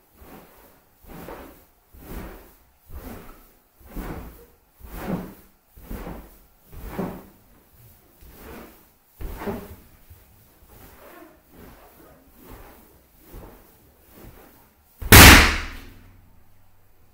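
A large latex balloon creaking and squeaking as it is pressed down on about once a second, then bursting with a single very loud pop near the end.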